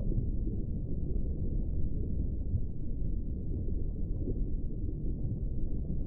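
Steady, muffled low rumble of underwater water noise, with no distinct calls or clicks.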